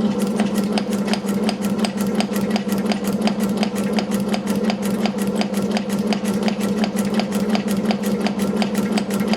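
Metal shaper running as it cuts a flat on a steel bolt: a steady machine hum with rapid, evenly spaced clicks from the ram's strokes.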